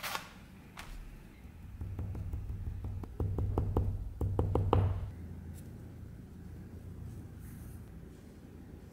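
Light, quick taps of a hammer on a steel anvil, about four or five a second for around three seconds in the middle, then quieter handling sounds.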